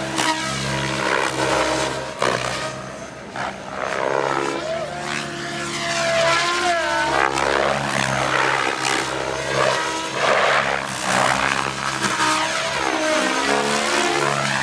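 Electric MSH Protos Max Leggero RC helicopter flying 3D aerobatics: a steady rotor buzz at constant head speed, swelling and fading in loudness and sweeping in tone as the helicopter is thrown around and passes near and far.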